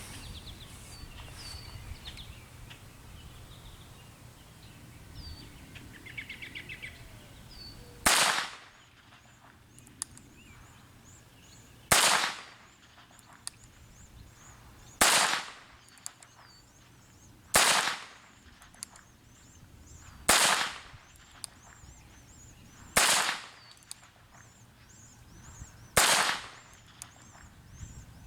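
Nine-shot .22 Long Rifle revolver fired single action, seven sharp shots spaced about three seconds apart, each followed by a short ringing echo. The first shot comes about eight seconds in, and birds chirp faintly in the background.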